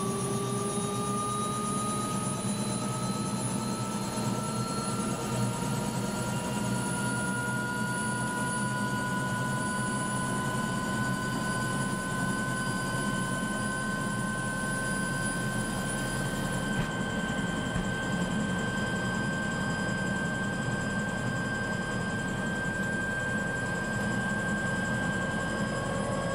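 Helicopter turbine engine heard from inside the cabin, its whine rising slowly and steadily in pitch as it spools up on the ground, over a steady low hum.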